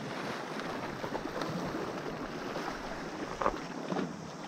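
Steady wind on the microphone over small waves lapping against shore rocks.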